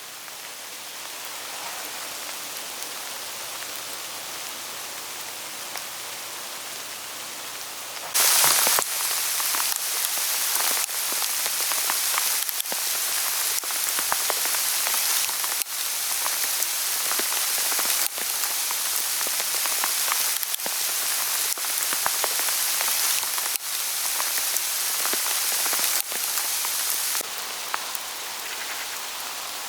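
Hail falling on autumn forest leaves, a dense steady patter of small hailstones on the foliage. About eight seconds in it suddenly grows louder, with many sharp individual ticks of stones striking leaves, and eases somewhat near the end.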